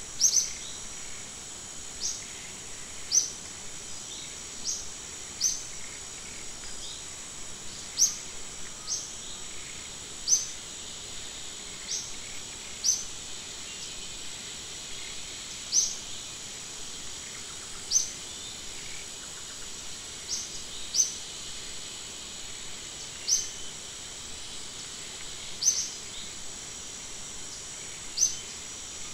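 Insects droning steadily at a high pitch, with a short, sharp bird chirp repeating about once a second over a faint background hiss.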